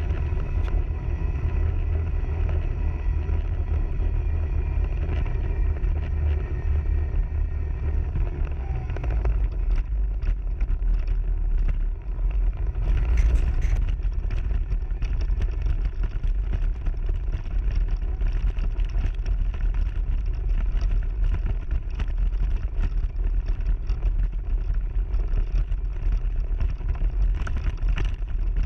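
A.C Mayan off-road mobility scooter driving over a rough gravel track, heard from a camera mounted on it. There is a deep, steady rumble, many small rattles and knocks from the bumpy ground, and a steady whine from the electric motor through the first several seconds.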